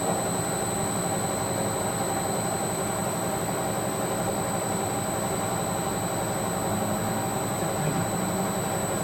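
A machine running steadily with a constant whine over an even hiss: the abnormal noise it makes at about 300 rpm before it has been adjusted.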